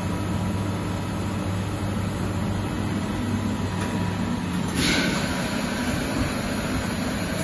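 Steady electrical and mechanical hum of running factory machinery, low and even throughout, with a brief hiss about five seconds in.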